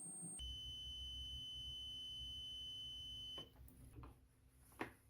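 Multimeter continuity beeper giving one steady high beep for about three seconds, then stopping, followed by a couple of faint clicks. It is a continuity test on the rice cooker's thermal fuse, and the unbroken beep means the fuse conducts.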